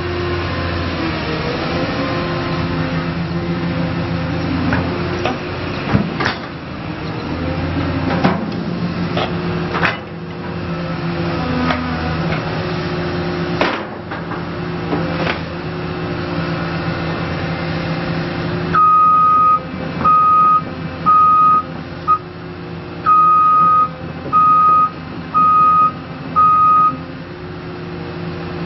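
Caterpillar 320D L excavator's diesel engine running with hydraulic load, its pitch dipping and rising as the machine works, with scattered clanks. About two-thirds of the way in, its travel alarm starts a series of about eight loud beeps at one pitch.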